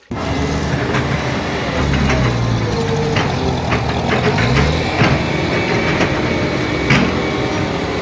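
Diesel engine of a single-drum vibratory road roller running steadily under load, its pitch wavering for a couple of seconds in the middle, with a few sharp clanks.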